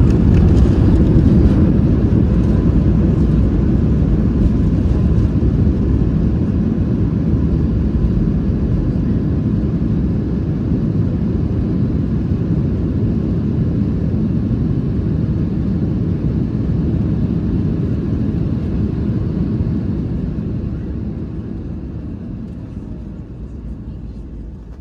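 Cabin noise of a Boeing 737 MAX 8 during its landing rollout: a loud, steady rumbling roar of engines and airflow that dies down over the last few seconds as the aircraft slows.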